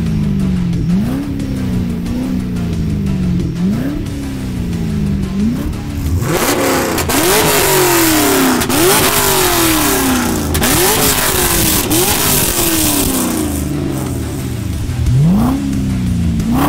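LS3 V8 engines revving, the pitch jumping up and falling back again and again. About six seconds in, a much louder launch sets in and lasts several seconds before it eases off.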